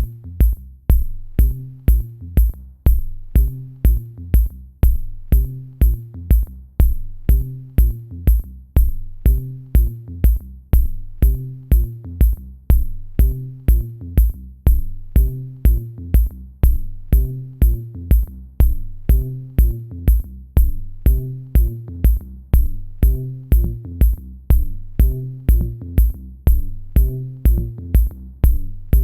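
Background electronic music with a steady drum-machine beat of about two kicks a second and a repeating bass line.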